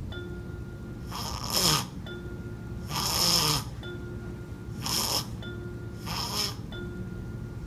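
An adult putting on snores for a baby: four loud snores, each under a second long, coming every one and a half to two seconds.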